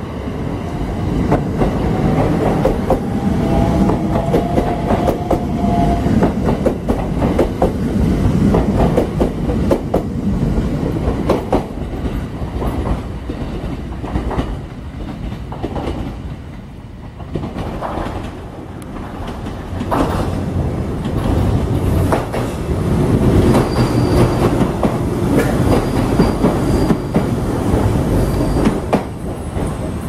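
Electric trains at a station: a train rumbles and clacks over the rail joints, and a brief thin squeal comes a few seconds in. The sound eases off midway, then builds again as another train runs in.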